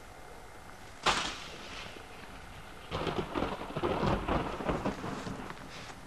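A sudden loud crash about a second in that fades over about a second, then a dense run of crackling and rustling from dry grass and brush being trampled and thrashed through.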